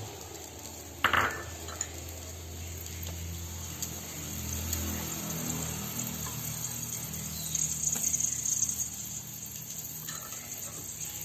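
Cooking oil being poured from a bottle into an empty aluminium pot, with a sharp clink against the pot about a second in.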